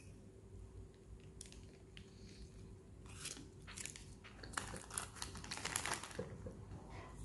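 Mouth sounds of a person biting into and chewing a paper-wrapped chicken sandwich, with the paper wrapper crinkling in a run of crackles about four to six seconds in.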